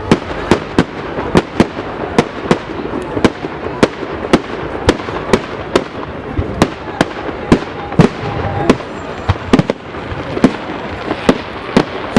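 Fireworks display: a rapid, irregular run of sharp bangs, about two or three a second, over a steady background of noise.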